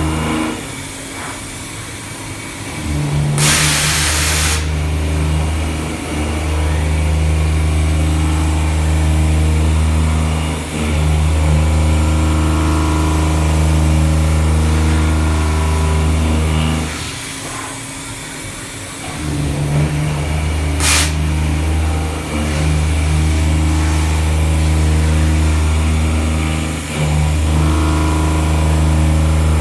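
CNC milling machine cutting a pocket, its spindle and drives running with a steady hum. The hum drops away twice for a couple of seconds, about a second in and again around 17 s, and there is a loud hiss about four seconds in and a brief sharp hiss near 21 s.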